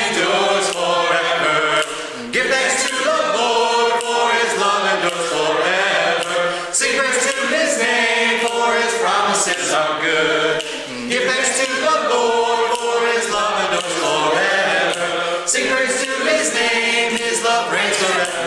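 Congregation singing a hymn together, unaccompanied, with men's and women's voices in unison. The singing is continuous, with brief breaths between lines.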